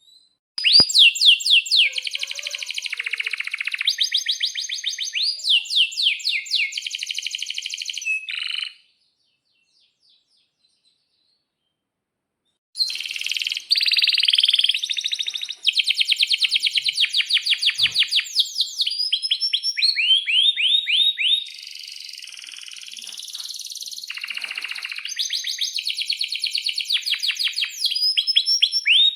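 Domestic canary singing long trilled and rolled phrases of rapid repeated notes, with a pause of about four seconds in the middle.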